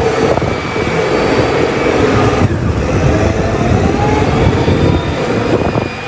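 Caterpillar 990 wheel loader's diesel engine running loud and steady, with a faint high whine over it.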